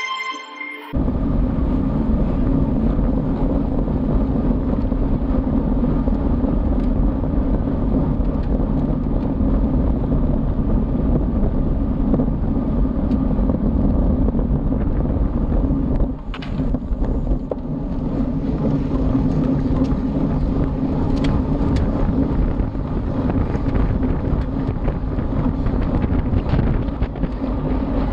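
Steady wind rushing over the microphone of an action camera mounted on a racing road bike, with road rumble, as the bike rides at race speed. The rush dips briefly about sixteen seconds in.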